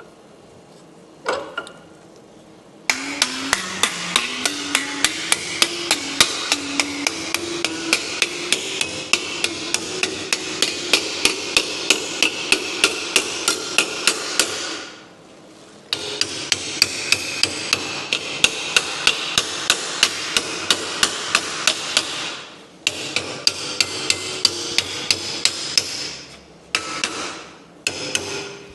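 Rapid, machine-paced metal strikes on a sheet-metal patch panel: a tool working the steel in long bursts of several seconds, with a short pause midway and a few shorter bursts near the end.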